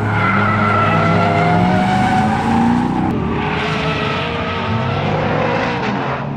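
A car drifting: its engine revs rise and fall while the tyres squeal through the slide.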